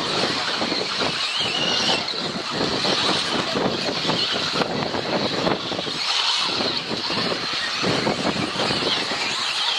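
4WD radio-controlled off-road cars racing on the track, their motors whining and wavering in pitch as the throttle changes.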